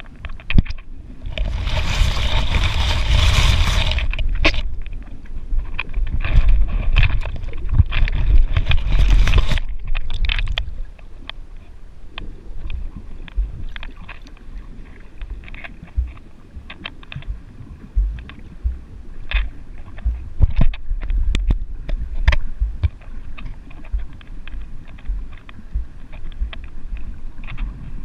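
Underwater sound from a camera in its waterproof housing, moved through shallow seawater: muffled rushing and sloshing water with a low rumble. Two louder spells of splashing, hissing water come in the first ten seconds, after which it settles to quieter muffled churning with scattered clicks and knocks against the housing.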